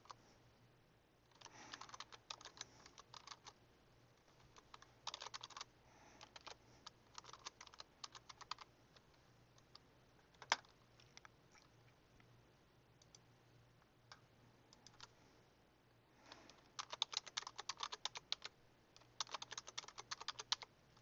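Typing on a computer keyboard in several short runs of rapid keystrokes, with a single sharper, louder click about ten seconds in.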